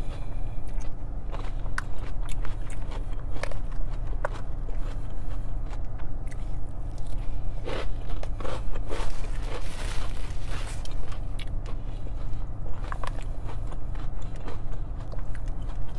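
Close-up chewing of a mouthful of salad, lettuce and croutons, with crunching bursts, and a fork clicking and scraping in a plastic takeout bowl, over a steady low hum.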